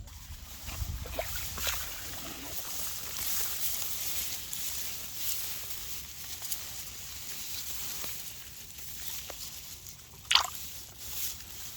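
Water sloshing and dripping in a flooded field, with a steady hiss of rain and small scattered splashes. One sharp, loud slap about ten seconds in.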